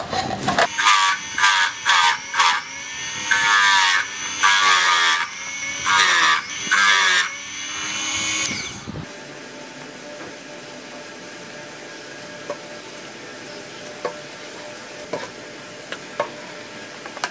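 Small bench drill press running and boring a series of holes in a wooden board, its motor note dipping and recovering each time the bit bites, about six times over the first eight seconds. After that the motor winds down, and a steady faint hum with a few light clicks follows.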